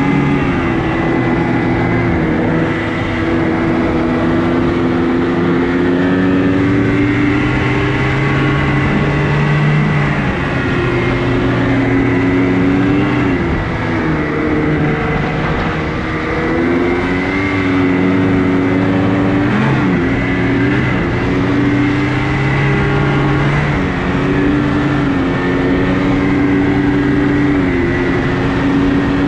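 Snowmobile engine running under way, its pitch dipping and climbing again several times as the throttle eases and opens, with a steady high whine alongside.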